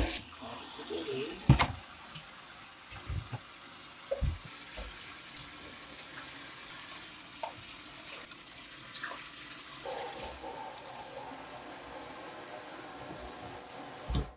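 Running water, a steady rushing noise, with several sharp knocks and clicks in the first few seconds.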